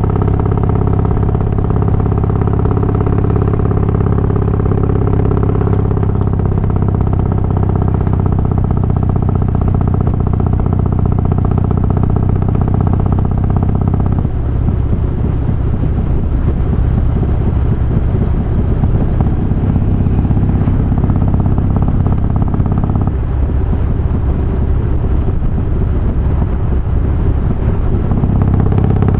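Harley-Davidson Twin Cam 88 V-twin running with Feuling 525 cams, hydraulic cam chain tensioners and a Dynatek ignition module. Its note is steady for the first half, turns rougher and lower about halfway through, picks up again for a couple of seconds, drops back, and returns to the steady note near the end.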